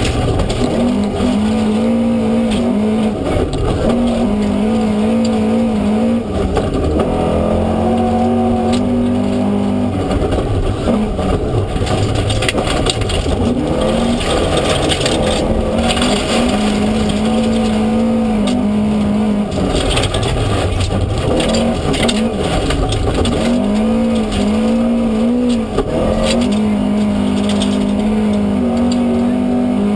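Tuned Opel Ascona rally car heard from inside the cabin, its engine revving hard and climbing in pitch, then dropping sharply at each gear change, over and over. Gravel crackles under the tyres and against the underbody throughout.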